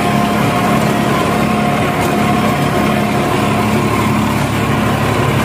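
New Holland 3510 35 hp tractor's diesel engine running steadily under load, driving a 10-foot rotavator through the soil in first low gear, with a steady whine on top. The load pulls the engine down about 100 rpm.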